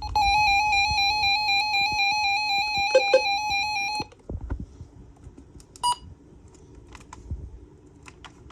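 Weather radio sounding an electronic alert tone: one steady, high-pitched tone with a slight warble that lasts about four seconds and cuts off suddenly, with two short lower beeps just before it stops. About two seconds later comes a single short beep.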